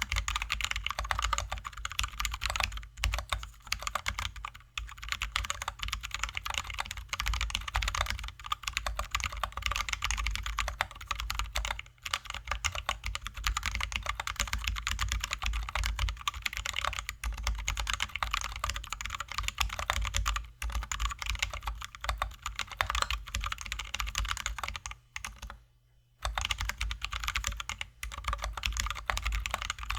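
Continuous fast typing on a mechanical keyboard: a Drop ALT High-profile with lubed and filmed Zealios V2 67g tactile switches and XDA-profile keycaps, giving a dense stream of keystrokes. The typing pauses for about a second near the end.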